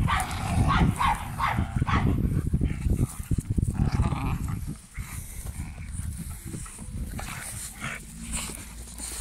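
Cane Corso puppies growling as they tug at a soccer ball held in their jaws, louder over the first half and quieter after about five seconds.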